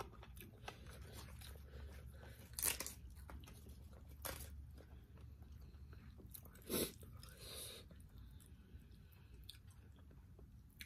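A person chewing food quietly, with a few short, sharp crunches and clicks from the mouth, over a low steady hum.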